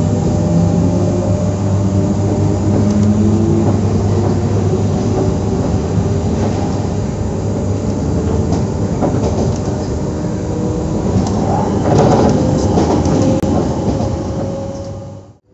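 SNCF Z 20500-series (Z2N) double-deck electric multiple unit Z 20897 running, with a steady electric traction hum whose tones slowly shift in pitch and wheels clicking and knocking over the rails. The sound drops out suddenly near the end.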